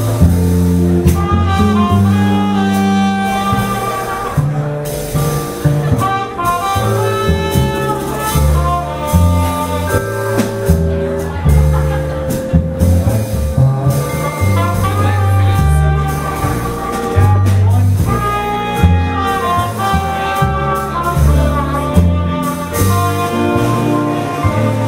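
Swing band playing an instrumental passage: saxophones and trumpet over a bass line that moves note by note, with drums.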